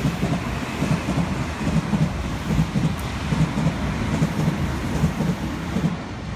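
Loud rumble of a passing vehicle that swells and fades near the end, with an even low knocking that comes mostly in pairs.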